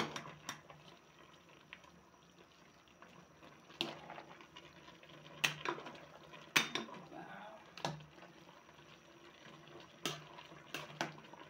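Spatula knocking and scraping against the pot while tossing pancit noodles and cabbage, with about seven sharp knocks at uneven gaps. Underneath is a faint steady simmer as the liquid cooks off.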